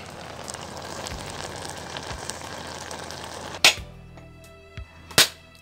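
Clay pot of rice on a wood fire hissing steadily as it boils. Then, after about three and a half seconds, two sharp knocks about a second and a half apart: a machete striking a husked coconut to crack it open.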